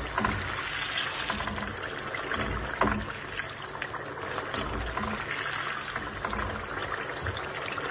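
Chicken curry with yogurt bubbling and sizzling in a wok while a spatula stirs it, with a few scrapes and knocks of the spatula against the pan. The masala is at the bhuna stage, frying down in its own fat.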